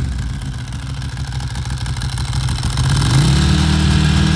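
Race-built Ducati Streetfighter 1098 L-twin engine idling through a Termignoni racing exhaust. About three seconds in, the throttle is opened: the revs rise, hold briefly, and drop back toward idle.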